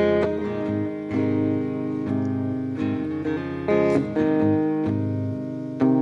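Clean-toned Telecaster-style electric guitar played on its own, picked chords ringing out with a new chord struck about every second as an instrumental break between sung lines.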